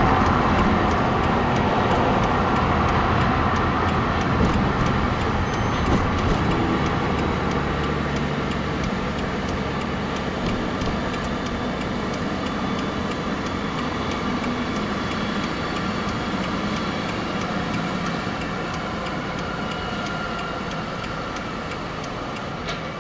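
Heavy truck running on the road, a steady engine rumble with road noise that slowly fades.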